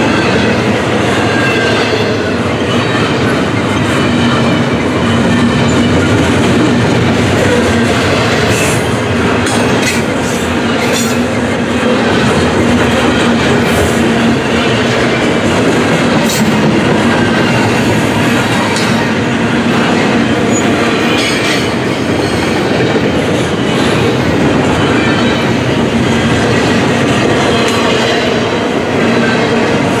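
Double-stack intermodal freight train's loaded well cars rolling past close by: a loud, steady rumble of steel wheels on rail with clickety-clack from the trucks and brief sharp clanks now and then.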